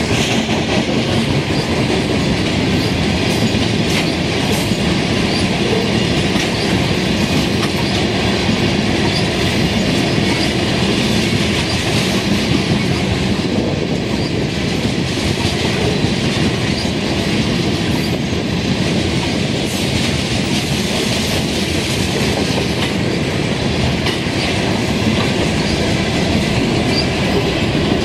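Freight train of tank cars rolling steadily past at close range, the steel wheels rumbling on the rails and clicking over the joints.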